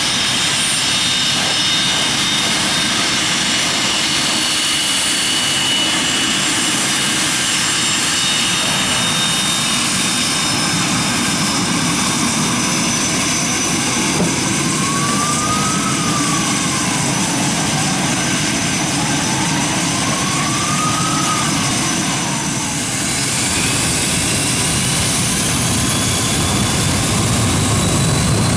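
Cessna Citation 650's twin Garrett TFE731 turbofan engines running loud and steady. From about two-thirds of the way in, a high whine climbs steadily in pitch as the engines spool up.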